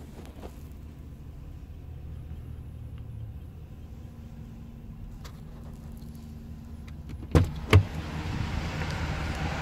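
Chevrolet Silverado 2500HD's 6.0-litre Vortec V8 idling, heard inside the cab as a steady low hum. Near the end come two sharp clunks, after which more outside noise comes in.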